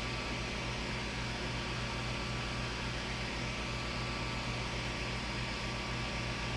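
Creality Ender 5 Plus 3D printer's cooling fans running steadily, a constant whirring hiss over a low electrical hum, while the bed heats up.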